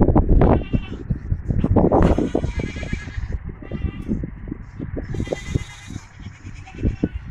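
Goat kids bleating, several short high calls one after another, over frequent low thuds and rustling.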